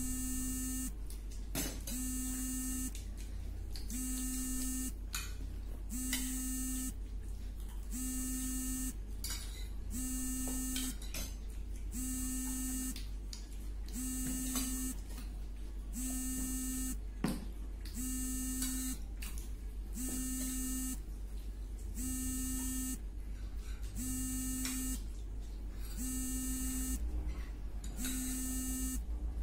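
An electronic buzzer sounding a buzzing tone about a second long, repeated every two seconds, over a steady low hum.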